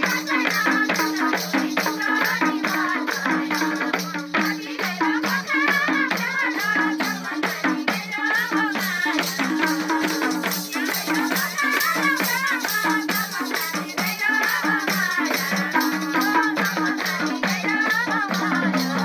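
Live Nepali dohori folk music: women singing over a fast, steady jingling of a hand-held tambourine and a repeating two-tone hand-drum (madal) beat.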